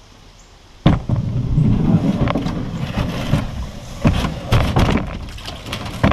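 Hollow knocks and a rumbling scrape from a plastic kayak hull being handled and moved, picked up by a camera mounted on the hull. A loud knock about a second in starts it, with further sharp knocks near the fourth and sixth seconds.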